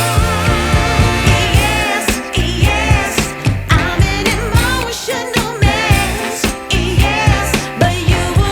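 Background music: a song with a sung melody over a steady beat and bass.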